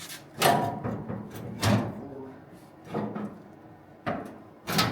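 A string of sharp metal knocks and clanks, about five at irregular intervals, some with a brief ring: sheet-metal body parts being worked loose and handled.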